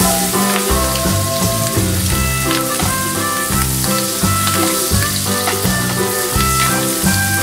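Shredded dried squid frying in melted butter in a nonstick pan, sizzling steadily as it is stirred with wooden chopsticks. Background music with a regular bass line plays over the sizzle.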